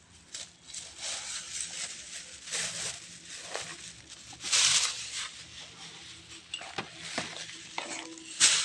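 A thin plastic carry bag rustling and crinkling in irregular bursts as things are pulled out of it, the loudest burst about halfway through, with a few small knocks from a cardboard box being handled.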